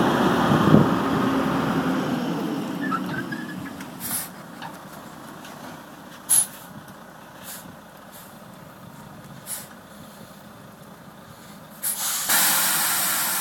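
Heavy truck's engine idling, fading over the first few seconds, then several short hisses and a longer, louder hiss near the end, typical of the truck's air brakes.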